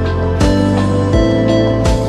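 Background music with held notes over a steady, gentle beat.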